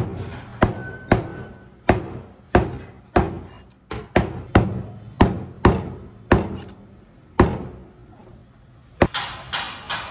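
Meat cleaver chopping pieces of puffer fish on a thick plastic cutting board: a run of sharp, hard chops, about one to two a second, with a short pause, then a quicker run of about three a second near the end.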